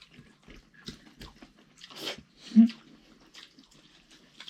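Close-up eating sounds: chewing and wet lip smacks from someone eating rice, dal and pickle. About two and a half seconds in there is a brief vocal sound, the loudest moment.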